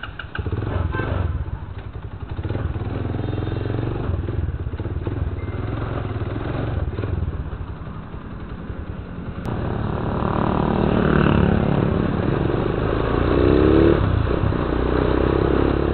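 Motorcycle engine running as the bike moves off at low speed, then accelerating, its pitch rising about 13 seconds in.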